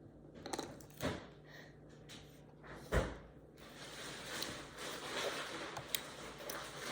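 Handling of a plastic drink bottle: a few knocks and clunks, the loudest about three seconds in, then a soft steady rustling noise.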